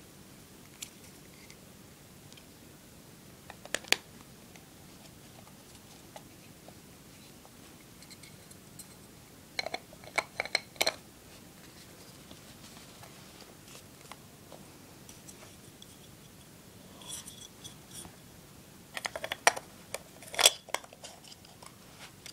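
Plastic lens caps and a camera body cap being handled on a DSLR and its kit lens: scattered sharp clicks and rattles in a few short clusters, the loudest near the end.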